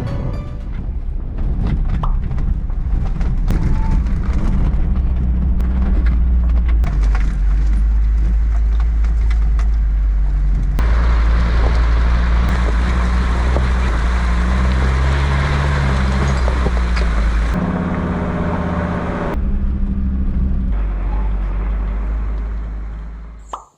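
Mercedes G 250 GD Wolf on the move: a steady low diesel engine rumble with frequent knocks and rattles. It is cut abruptly into several takes, and a louder hiss joins it for several seconds in the middle.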